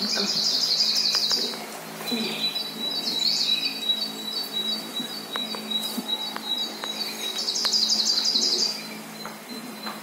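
Small songbirds chirping and trilling from a bird-feeder video, heard through a TV speaker: a rapid high trill at the start and another about eight seconds in, with a thin steady high note between them over a low hum.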